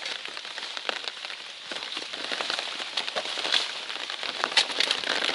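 Heavy rain pattering: a dense crackle of drops with sharper taps scattered all through.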